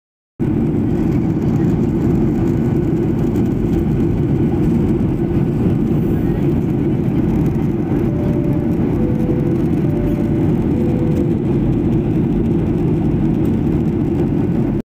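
Steady cabin noise of a jet airliner in cruise: a low, even rush of engine and airflow heard from inside the cabin, unchanging throughout.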